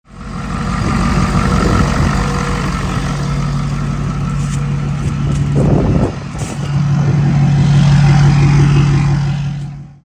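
2011 Ford F-350's 6.7 L Power Stroke V8 turbo-diesel running, with a steady low hum that drops briefly about six seconds in and then comes back.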